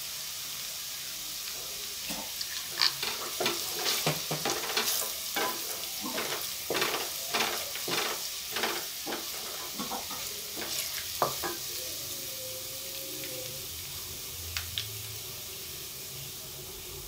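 Chopped garlic sizzling in ghee in a metal pot as it browns, with a steady frying hiss. From about two seconds in to about eleven seconds in, a wooden spatula stirs and scrapes it in repeated strokes.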